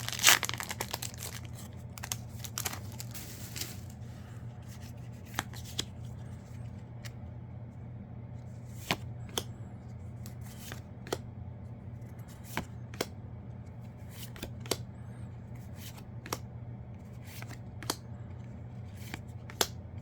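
A foil Yu-Gi-Oh! booster pack torn and crinkled open, then its cards flicked through one at a time, a light click each, about one a second. A steady low hum runs underneath.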